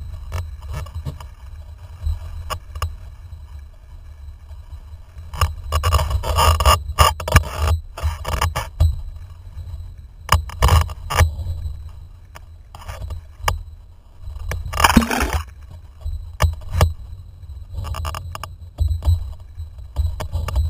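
Windsurfing heard from an action camera on the rig: wind rumbling on the microphone, with bursts of rushing, splashing water against the board and frequent short knocks and scrapes from the rig. The longest splash comes about fifteen seconds in.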